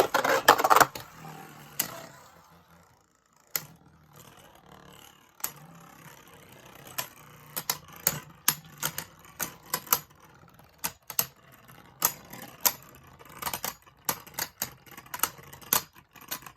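Beyblade Burst spinning tops battling in a plastic stadium: a loud start, a lull, then irregular sharp plastic clacks, often a couple a second, as the tops collide over a faint steady whir.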